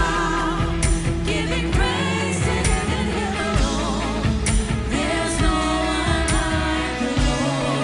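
Live worship band playing: bass and keyboard under a steady drum beat with a cymbal hit about once a second, and a voice singing long, wavering notes without clear words.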